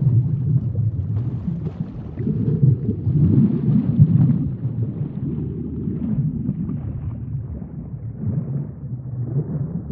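A low rumbling noise with no clear tone, swelling and fading every second or so.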